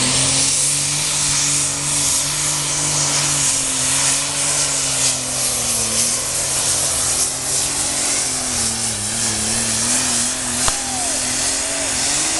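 Super Stock pulling tractor's turbocharged diesel engine at full power, hauling the weight sled down the track: a loud, steady engine note with a heavy hiss over it, the pitch sagging a little about halfway through and wavering near the end.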